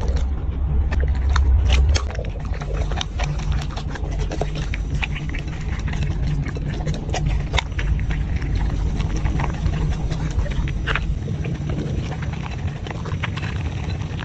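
Black Labrador eating from a bowl held close: many irregular crunches and clicks of the dog chewing dry kibble mixed with a soft topping, over a low, steady rumble.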